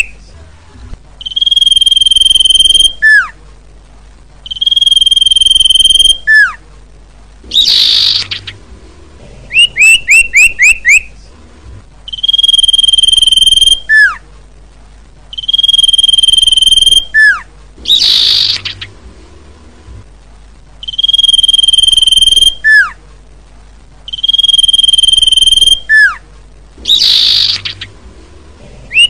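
Common iora (cipoh) calling in a repeating sequence: a quick run of about five falling chirps, then a long, steady, high whistle ending in a short falling note. Every third round or so a harsh, rasping note breaks in.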